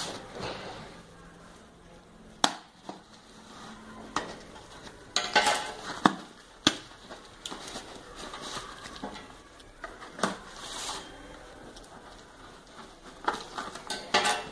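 A shipping package being opened by hand: irregular rustling and scraping of packaging, with a few sharp clicks and taps.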